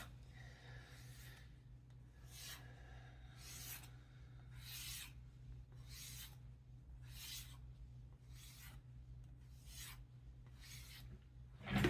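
Japanese utility knife blade being stropped: about ten short, evenly paced scraping strokes, roughly one a second, as the freshly ground edge is drawn along the strop. Stropping is the final stage of sharpening, here done straight after grinding with no honing stage.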